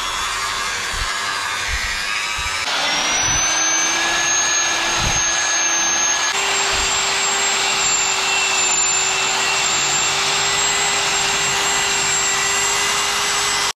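Electric drill spinning a foam polishing pad with cutting paste against a plastic headlight lens, in the compound-polishing stage after wet sanding. A steady motor whine that steps up in pitch twice, about a fifth and about halfway in, as the drill speeds up.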